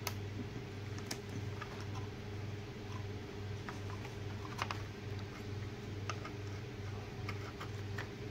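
Light, scattered clicks and taps of tools on a printed circuit board as a soldered component is worked free, over a low hum that pulses about twice a second.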